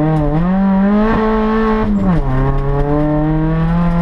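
Rally car engine heard from inside the cabin, pulling hard under acceleration. About two seconds in the pitch drops sharply at a gear change, then climbs slowly again.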